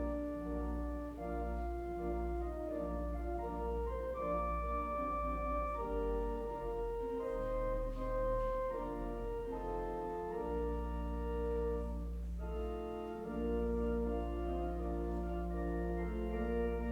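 Organ playing slow sustained chords over a held deep bass note, music for a church service; the bass drops out briefly twice, around ten and twelve seconds in.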